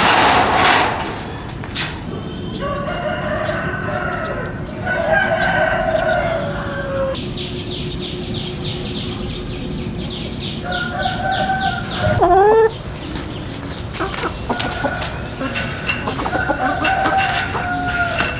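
Roosters crowing several times, each crow a long held call lasting a second or two. Hens cluck in between.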